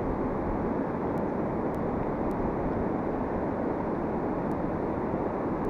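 Steady rush of a fast, shallow mountain river running over a stony bed and small rapids.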